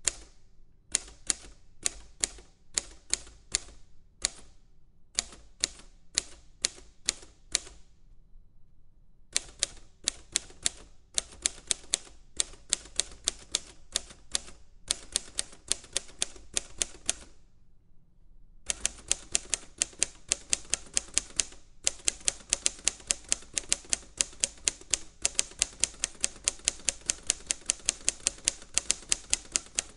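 Typewriter keys striking in runs of sharp clicks, with a short break about eight seconds in and another near eighteen seconds. After that the typing goes on faster and without a break.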